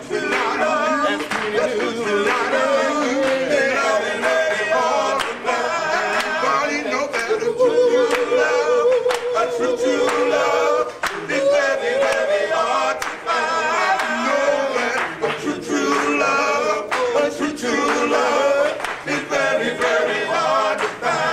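A male vocal group singing a cappella in harmony, several voices stacked. Around the middle one voice holds a long note with a wavering vibrato.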